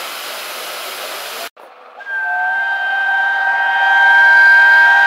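Steady hiss of steam from LNER A1 Pacific 60163 Tornado; after a cut about a second and a half in, the approaching locomotive's steam whistle sounds one long, loud blast of several notes at once.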